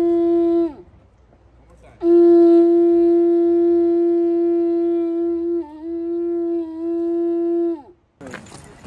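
A horn blown by mouth, sounding one steady note twice: a short blast, then after a pause a long blast of about six seconds that wavers slightly near its end, each sagging in pitch as the breath gives out.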